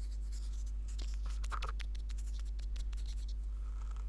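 Light scratching and small clicks of cosmetic pigment jars and makeup being handled at close range, over a steady low hum. The clicks bunch up in the first three seconds or so, then stop.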